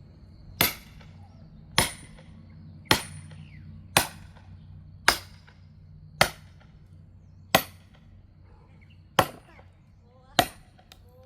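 Axe chopping into a hard log of firewood with nine sharp blows, about one a second, each with a brief ringing tail.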